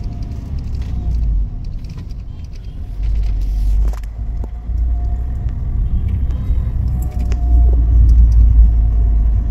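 Road and engine rumble of a moving car heard from inside the cabin, a steady low drone that swells louder twice, with light rattles.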